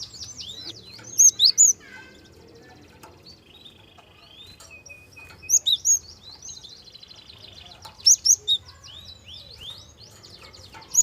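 Gelatik songbird singing: rapid high trills and sweeping whistled notes, broken every few seconds by a loud group of two or three sharp chirps.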